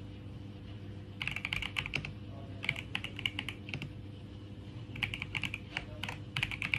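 Typing on a computer keyboard: quick runs of key clicks in several bursts, with short pauses between them.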